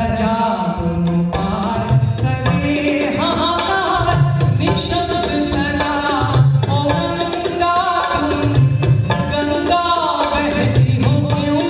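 A woman singing a slow folk melody into a microphone, her voice gliding and ornamented, with tabla and other hand percussion playing a rhythm underneath.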